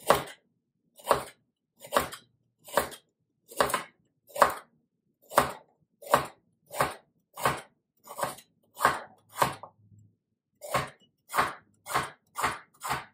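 Raw carrots being sliced with a hand-held crinkle-cut slicer pushed straight down, a crisp crunch at each stroke, about two a second. There is a short pause about ten seconds in.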